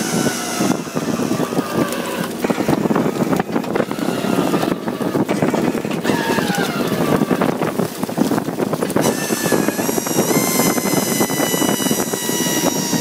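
Fishing boat's engine and net-hauling machinery running while a gill net full of fish comes aboard over the rail, with a constant rattle and clatter. Over it a machine whine slides down in pitch a few times, then holds steady near the end.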